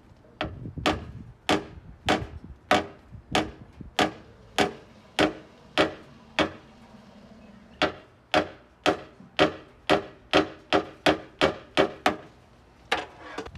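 Paintless dent repair rod working the dent from behind a Tesla Model 3 front fender, giving sharp metallic clicks at a steady pace of a little under two a second, each with a short ring. The clicks stop briefly just past the middle, then resume.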